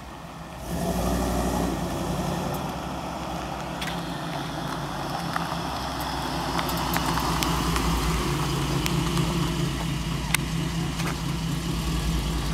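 1999 GMC Sierra's 5.3-liter V8 idling through long-tube headers, a Y-pipe and a Flowmaster Super 44 muffler with the catalytic converters removed: a steady, low exhaust note. It comes in abruptly about a second in.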